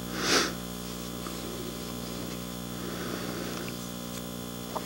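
Steady electrical mains hum from the sound system. A brief hiss comes just after the start, and a couple of faint clicks come near the end.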